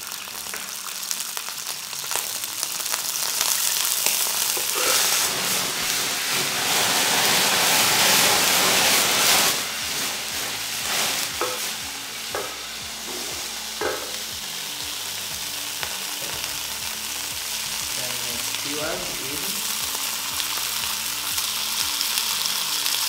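Hot oil sizzling and spitting in a nonstick frying pan over a gas burner, with curry-marinated chicken skewers frying in it. The sizzle grows louder a few seconds in, with a few short ticks and pops.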